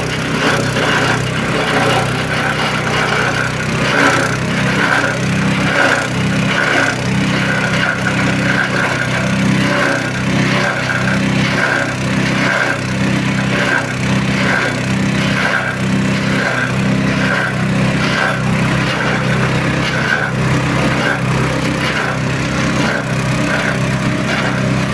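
Shredding machine for cloth rags and foam running, a steady mechanical hum with a regular pulsing a little faster than once a second.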